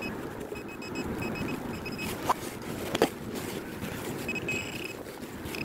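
Metal-detecting pinpointer giving short, repeated high beeps as it homes in on a buried target, sped up, over a steady rumble of wind and a few sharp knocks of digging.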